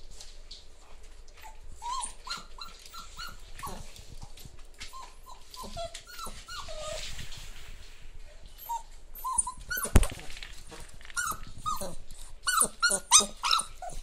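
Puppies yelping in short high-pitched calls, scattered through and coming thick and loud in a quick run near the end. A single sharp knock about ten seconds in.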